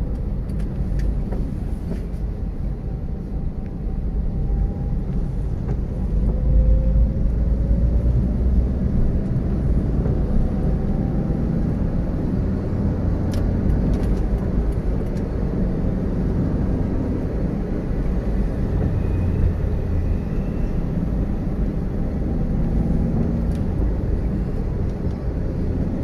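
Steady low rumble of a car's engine and tyres heard from inside the cabin while driving. It gets louder about six seconds in, with a faint engine note rising in pitch.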